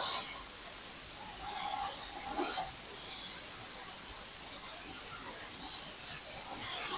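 Hypertherm MAXPRO200 plasma torch on a CNC cutting table cutting 10 mm mild steel plate at 130 amps on the oxygen process: the arc and gas jet give a steady hiss as the cut runs.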